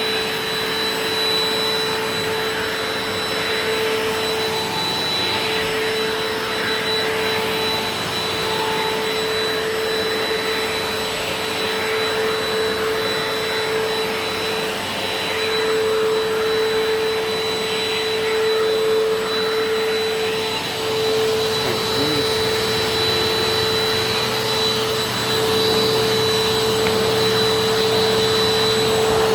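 WAP Power Speed 2-in-1 upright vacuum cleaner (2000 W) running steadily, its brush nozzle fitted to the extended hose: the motor's rush of air with a constant high whine on top.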